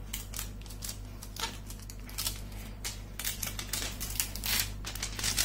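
Fingernail picking at and peeling the protective plastic film off the glass back of a Redmi K20 phone: a run of irregular small clicks and crackles.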